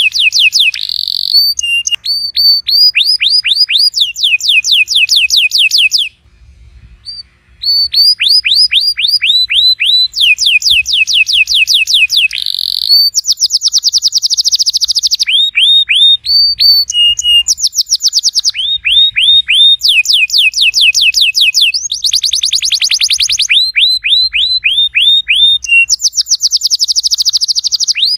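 Domestic canary singing: fast trills of rapidly repeated down-slurred notes, switching to a new note type every second or two, with a short break about six seconds in.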